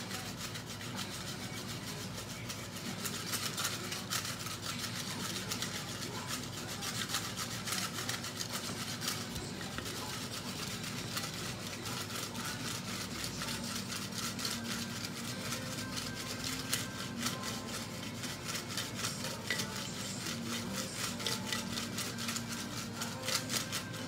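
Folded paper entry slips being shaken and swirled in a ceramic bowl, giving a continuous rustling and scraping that stays steady throughout.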